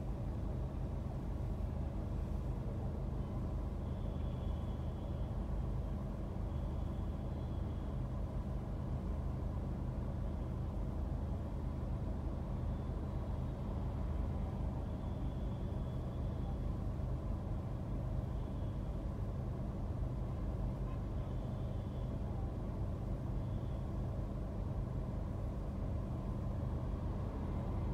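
Steady low rumble of a car idling in stopped traffic, heard from inside the cabin, with faint high-pitched tones about a second long coming and going several times.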